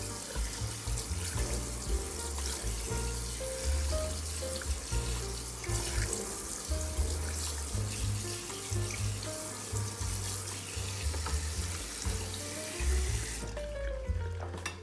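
Kitchen faucet spraying cold water onto broccoli florets in a mesh colander over a steel sink, a steady rushing hiss that stops about a second before the end. Background music with a steady bass line plays throughout.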